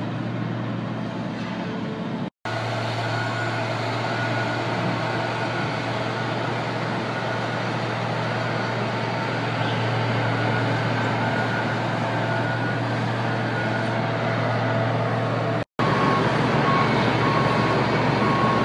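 Diesel excavator running steadily at a demolition, a constant low engine hum under a wash of machinery noise. The sound drops out twice for an instant, and a faint repeated beeping comes in near the end.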